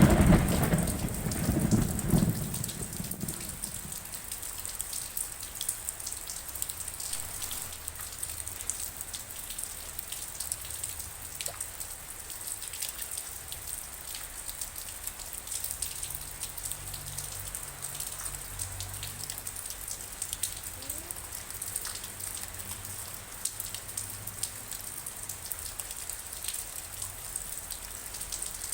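Steady rain falling, with many small raindrop taps on a hard surface. A loud rumble of thunder dies away in the first two or three seconds, and faint low rumbling comes and goes later on.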